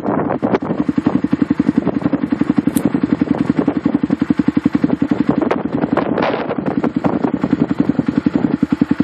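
An engine idling close to the microphone with a steady, rapid, even chugging, and a few sharp rattles and clicks over it.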